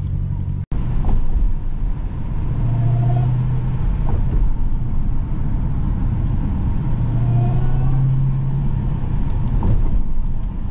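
Supercharged 6.2-litre HEMI V8 of a Dodge Hellcat heard from inside the cabin, cruising at a steady engine speed with a deep even drone that swells twice. The sound cuts out briefly just under a second in.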